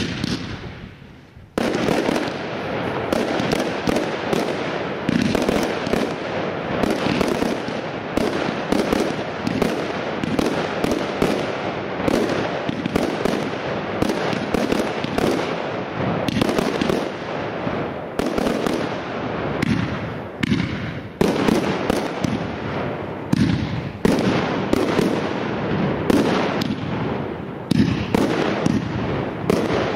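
Fireworks firing in rapid succession: a dense, continuous run of bangs and crackling. It eases briefly about a second in, then keeps up without a break.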